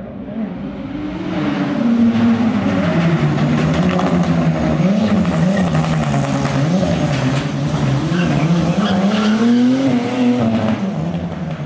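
Rally car engine revving up and dropping back over and over as the car is driven hard. It grows louder about two seconds in and fades near the end.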